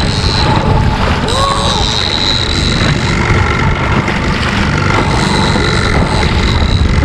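Loud wind buffeting the microphone on a small boat in rough sea, over an outboard motor running with a thin high whine that comes and goes.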